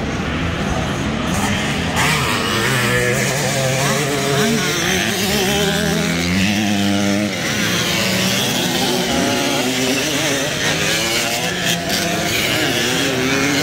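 Several vintage motocross motorcycles revving and accelerating on a dirt track, engine notes overlapping and rising and falling through the gears. About six to seven seconds in, one engine climbs sharply in pitch.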